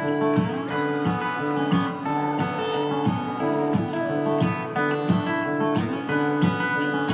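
Acoustic guitar strummed in a steady rhythm, playing live with no singing.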